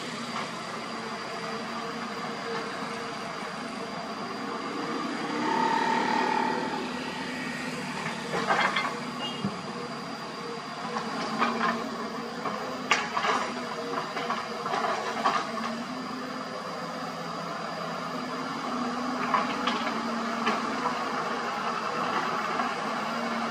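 Heavy diesel engines of dump trucks and a Hyundai 220 excavator running steadily, with a brief tone about six seconds in and a string of sharp metallic clanks and knocks in the middle, typical of loading work.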